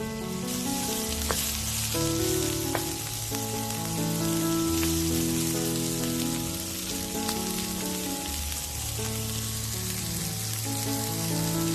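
Food frying in hot oil in a pan, a steady sizzle over background music with held notes. A few faint clicks sound in the first few seconds.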